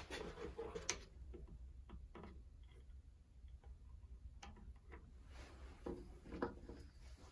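A few faint, scattered clicks and taps of small wooden parts being handled, with a brief rustle at the start.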